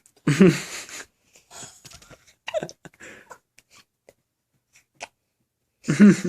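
Newborn baby's breathy noises: one loud, noisy huff about half a second in, then fainter short squeaks and snuffles.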